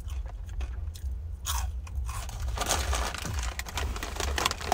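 A person biting into and chewing crunchy rolled chili-flavoured tortilla chips close to the microphone, the crunching turning dense a little past halfway. A low steady rumble runs underneath.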